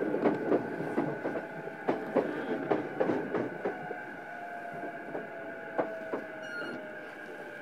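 Running noise inside a JR East E233-series electric motor car as it slows: irregular clacks of the wheels over rail joints that grow fewer and quieter, and a thin electric whine from the traction drive falling slowly in pitch under braking.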